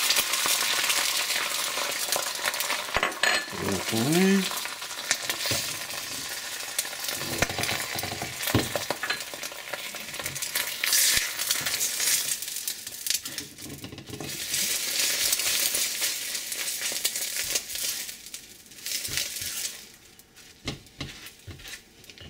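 Beaten egg sizzling in very hot oil in a wok, loud at first and fading in the second half. A spatula scrapes and taps against the wok.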